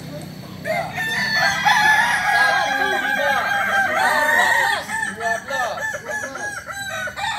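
Several kukuak balenggek roosters crowing at once, their long crows broken into many quick stepped syllables and overlapping one another. The crowing starts less than a second in, is loudest for the next few seconds, then thins to shorter, choppier calls after about five seconds.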